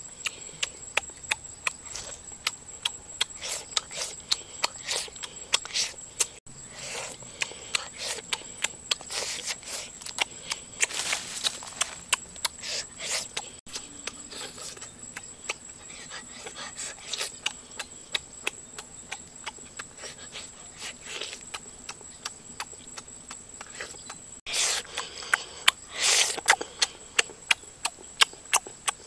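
Close-up chewing and lip-smacking on grilled pork rib: a stream of short, wet clicks about two or three a second, louder and busier near the end.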